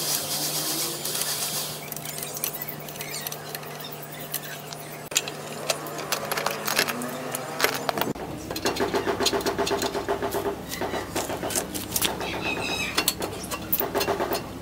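Hand tools on metal and the stock exhaust of a Modenas Kriss 110 motorcycle being unbolted and worked loose. There are scattered metallic clicks and knocks, then from about halfway a rapid, even clicking rattle.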